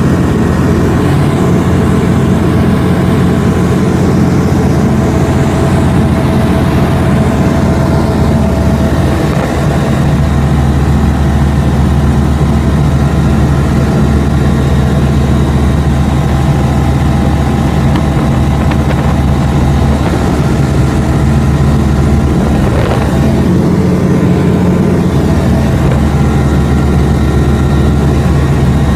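Single-engine light aircraft's engine and propeller droning steadily at constant pitch through the flight, heard from inside the cockpit.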